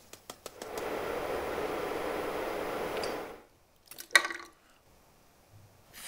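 A few light taps of a ceramic saucer against a stainless steel pot as dye powder is tipped off it. Then a steady hiss for about two and a half seconds that cuts off suddenly, and a single short clink near the end.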